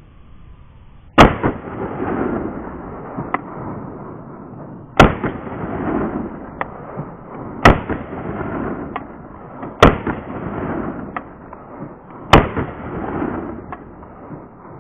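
Five shots from a Carrera GT50 traumatic pistol, fired a few seconds apart, each trailing off in echo. The pistol fires and cycles normally after being frozen for twelve hours.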